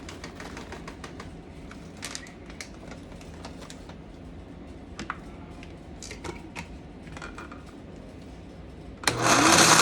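Light scattered clicks and taps of ingredients and utensils being handled, then about nine seconds in a small electric blender starts up loudly, its motor whine rising in pitch as it blends the chipotle sauce.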